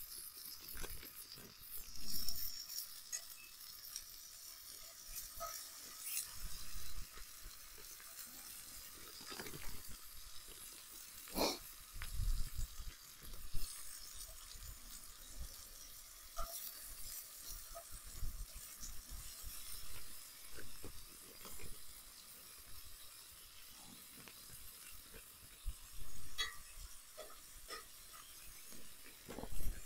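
Bacon sizzling in a cast-iron skillet over a wood fire: a steady frying hiss with scattered pops and clicks as strips are laid in and turned with a fork.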